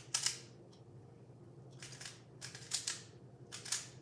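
Plastic Rubik's cube layers being turned quickly, clicking and clacking in short rapid flurries, about four of them.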